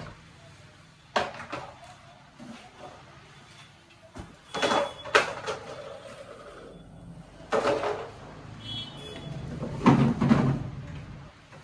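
Irregular rustling, scraping and knocks of a cardboard box and its plastic packaging being handled as a kids' 12 V ride-on car is unpacked, loudest about ten seconds in.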